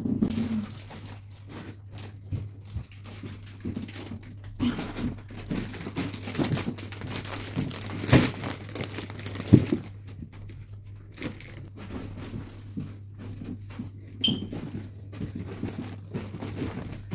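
Shopping bags and packaging crinkling and rustling as purchases are handled, with two sharp knocks about halfway through.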